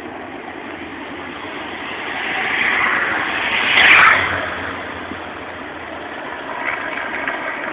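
Motorcycles riding past close by on the race course, their engine and tyre noise swelling, loudest about four seconds in, then fading as they go away.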